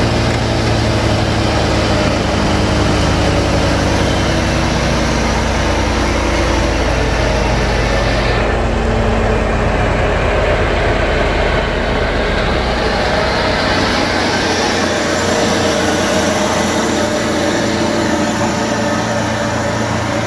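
Honda two-cylinder four-stroke gas engine of a wood chipper running steadily. About eight seconds in the hiss drops away, and around thirteen seconds the deep rumble fades, leaving a lighter running sound.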